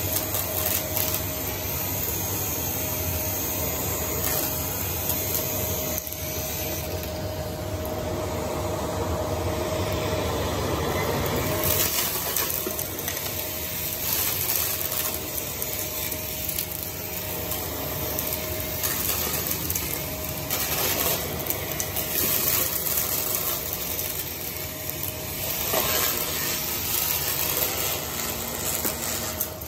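Vacuum cleaner running steadily with a faint steady whine from its motor. Debris from the carpet crackles and clicks now and then as it is sucked up.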